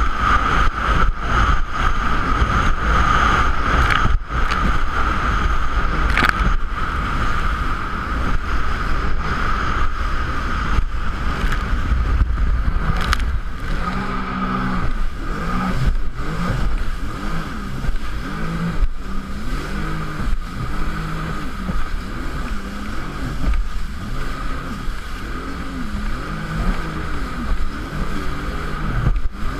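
Jet ski engine running at speed, with many short thumps throughout. From about halfway on, the engine pitch rises and falls over and over, roughly once a second.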